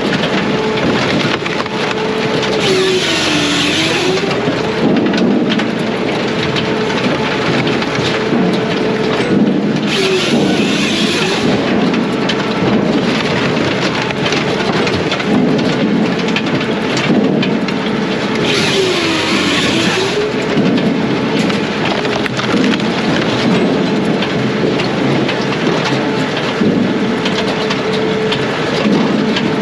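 Brute Force USA 18-24HD diesel firewood processor running steadily, its engine pitch pulling down briefly three times as it takes load, each time with a burst of hissing noise from the cut.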